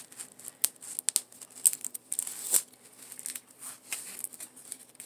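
Plastic film wrapping on a rolled diamond-painting canvas crinkling and tearing as it is pulled off by hand, in irregular sharp crackles.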